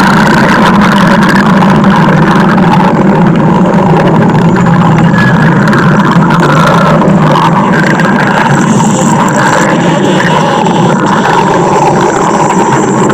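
Stomach growling, loud and continuous with no pauses: a steady low rumble.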